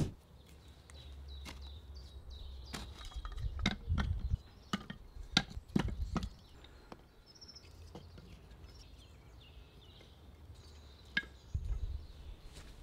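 Split beech and ash logs and kindling being set down and stacked in a rusty iron fire bowl: scattered wooden clunks and knocks of wood on wood and wood on metal, over a low background rumble.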